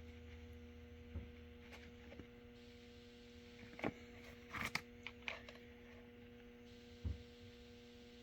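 Faint steady electrical hum, with a handful of brief rustles and clicks as a Gore-Tex jacket's bungee cord and baling wire are handled, the busiest cluster about four to five seconds in.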